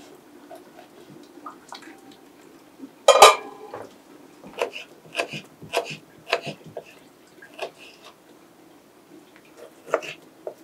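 Kitchen knife cutting salted pork fat (salo) on a wooden cutting board: a series of short knocks as the blade strikes the board, mostly about half a second apart. About three seconds in there is one louder, longer rattling knock.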